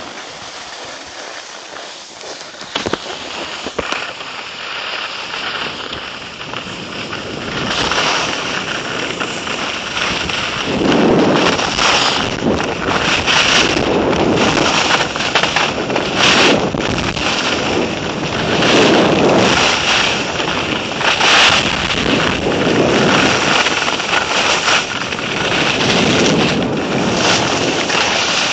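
Wind rushing over the microphone of a skier on the move, mixed with skis scraping over groomed snow. A steady rushing noise that grows louder about eight seconds in, then swells every two or three seconds.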